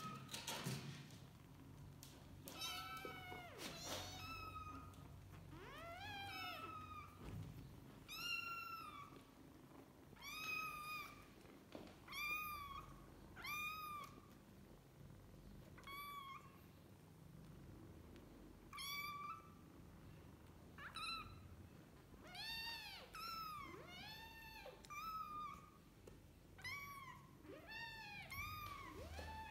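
Kitten meowing over and over: short, high-pitched meows, each rising and falling, coming roughly one every second or two.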